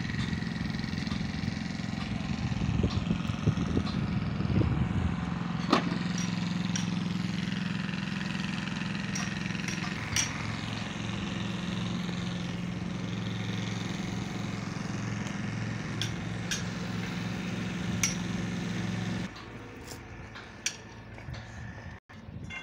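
An engine idling steadily, with a few sharp knocks over it; the engine sound cuts off abruptly near the end.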